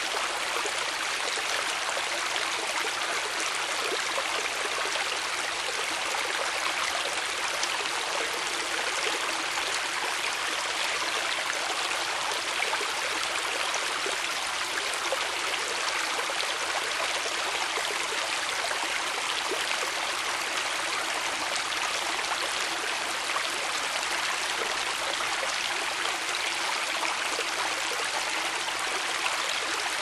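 Forest stream flowing, a steady, unbroken rush of running water.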